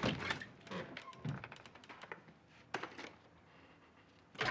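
Scattered light clicks and taps in a small room, then a loud knock near the end as metal double doors are pushed open.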